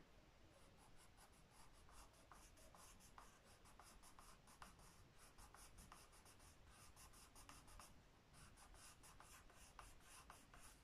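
Coloured pencil scratching faintly on squared notebook paper in many short, quick strokes as it goes over the lines of a drawing.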